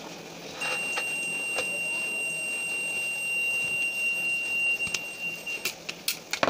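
Digital multimeter's continuity buzzer giving one steady high beep while its test probes are held together. It starts about half a second in and cuts off after about five seconds. A few sharp clicks follow near the end.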